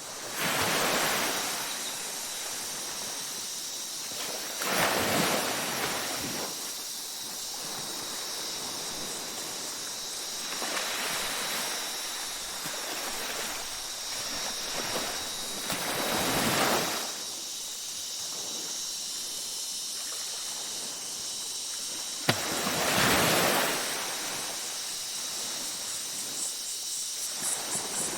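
Ocean waves breaking and washing up a beach, swelling every five or six seconds over a steady wash, with a steady high-pitched tone over everything and one sharp click about two-thirds of the way through.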